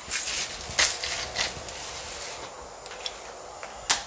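Kitchen handling noises: a few short rustling, scraping strokes, then a sharp click near the end.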